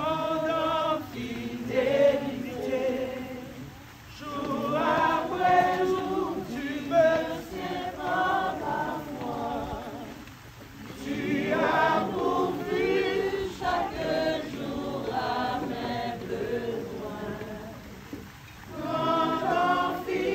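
A group of voices singing a song together without instruments, in long phrases with brief pauses between them.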